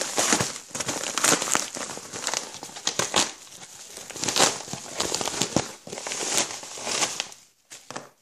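A yellow padded mailer envelope being handled and opened: irregular crinkling and crackling of the packaging, dying away about a second before the end.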